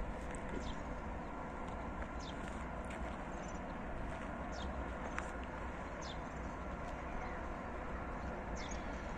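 Songbirds chirping, short high falling notes about once a second, over a steady low outdoor rumble.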